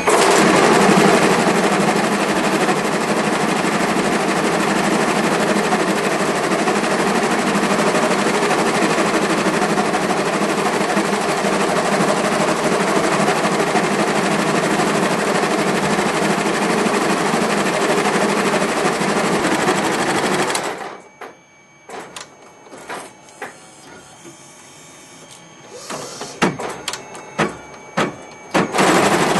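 ZSK MSCD industrial embroidery machine running at speed, stitching with a dense, steady mechanical chatter. About two-thirds of the way through it stops abruptly, leaving a quieter stretch with scattered clicks and knocks, then starts running again at the very end.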